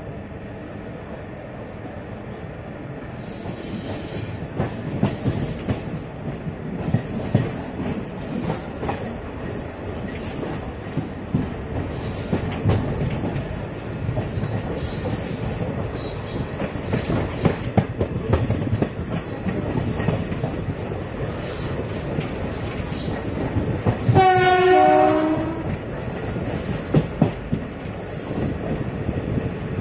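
Passenger train running, heard from on board: a steady rumble with the wheels clattering over the rail joints, growing louder over the first few seconds. About 24 seconds in, the locomotive horn sounds once for about a second and a half, dropping slightly in pitch near its end.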